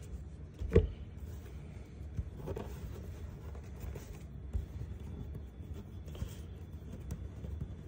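Trading cards being handled and laid down on a tabletop: a sharp tap about a second in, then soft scrapes and a few light taps.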